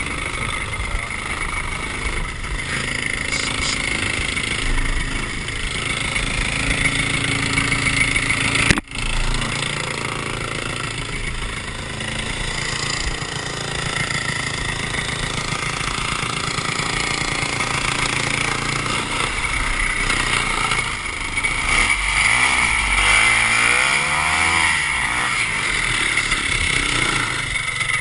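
Vintage Ski-Doo snowmobile's two-stroke engine running steadily, cut by a sudden short break about nine seconds in. Near the end the engine revs up and down a few times.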